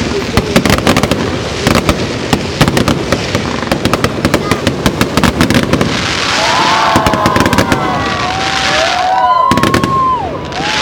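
Fireworks going off at street level: a dense run of rapid bangs and crackles, giving way to a steadier hiss about six seconds in.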